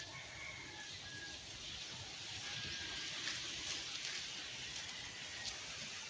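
Faint outdoor ambience: a steady soft hiss, with a few faint, short, high thin whistles in the first half.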